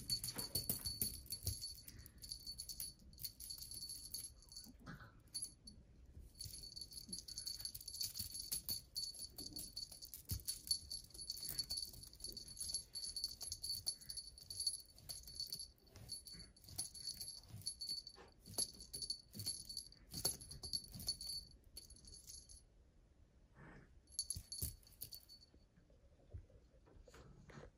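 A small jingle bell on a cat wand toy jingles faintly and steadily as the toy is waved and batted, over soft scattered taps and scuffles from a kitten pouncing on fleece. The jingling stops near the end, with one short burst shortly after.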